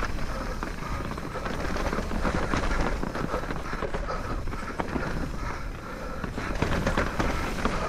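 Santa Cruz Bullit electric mountain bike being ridden over a slick dirt trail: tyres on dirt with a steady run of rattling and clicking from the bike over rough ground.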